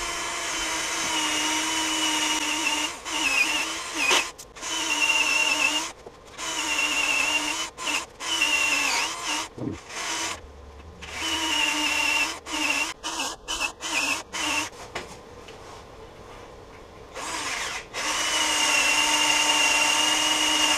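Cordless drill with a twist bit boring holes into hard, dry black walnut, its motor whine starting and stopping in many short runs of a second or two. A quieter stretch comes about two-thirds of the way through, then a longer run near the end.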